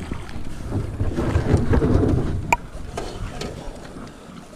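Wind rumbling on the microphone over the wash of paddling from an aluminum canoe, with one sharp metallic clink about two and a half seconds in.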